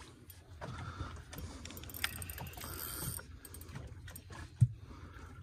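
Spinning reel being cranked against a hooked fish, its gears clicking and whirring as line is wound in, with a sharp knock about four and a half seconds in.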